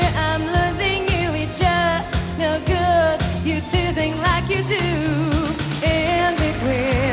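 Disco song playing: a singer's voice with vibrato over a steady beat and bass line.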